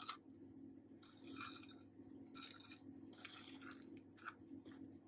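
Wooden spoon working a thick cake mixture of creamed butter, sugar, egg and flour in a glass bowl: faint, soft squelching and scraping strokes, several in a row.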